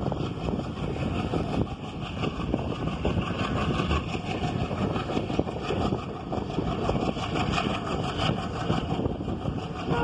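Steady rumble and rushing air of a vehicle in motion, with no distinct engine note.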